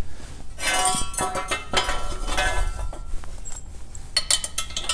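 Steel tire support brackets clanking and ringing against the metal frame of a MoJack tractor lift as they are slid in and pinned, ending in a few quick metallic clicks near the end.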